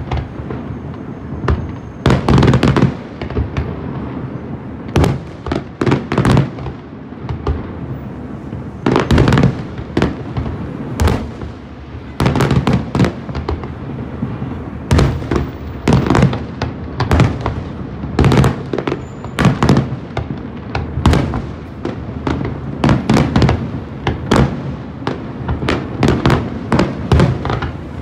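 Aerial fireworks bursting in a long, irregular string of loud bangs, at times several in quick succession, with a low rumble carrying on between them.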